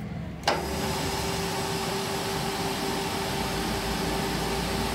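Engine lathe turning a truck rear axle shaft: a sharp click about half a second in, then a steady machine hum with a held tone as the chuck spins the shaft.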